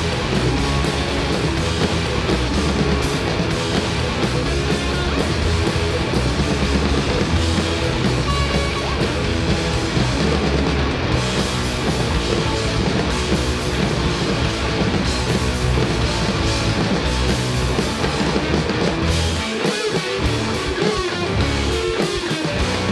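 Rock band playing live: two distorted electric guitars, electric bass and two drum kits. Near the end the deep bass drops away for a moment, leaving mostly guitars.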